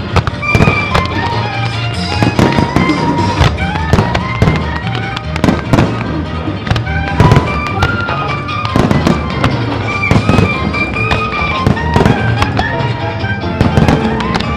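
Fireworks display: aerial shells and rising comets going off in many sharp bangs in quick, irregular succession, over a music soundtrack played along with the pyromusical show.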